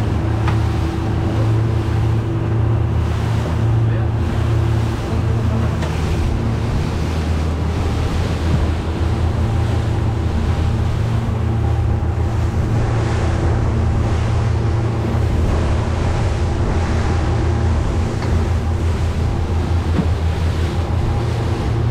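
Fishing boat's engine running steadily while under way, a constant low drone over the rush of water along the hull and wind on the microphone.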